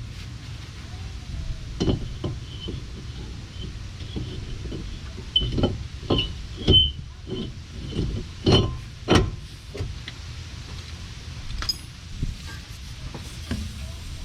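Metal brake parts knocking and clinking as a front brake caliper and rotor are fitted back over a hub: a scatter of sharp clunks, most of them bunched about halfway through, over a steady low hum.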